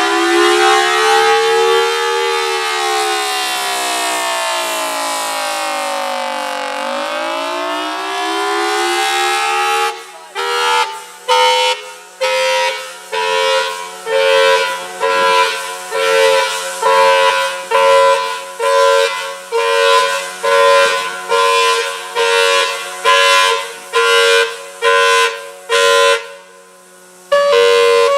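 Federal Signal Thunderbolt outdoor warning siren sounding: a slow wail rising, falling and rising again over about ten seconds, then switching to a steady-pitched tone pulsed on and off about once a second.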